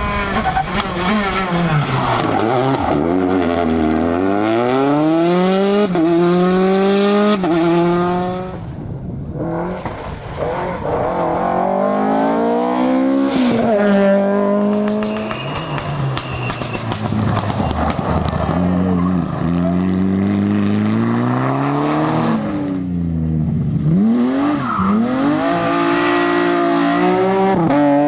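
Rally car engines driven hard: the revs climb and drop again and again through gear changes and lifts, loud throughout.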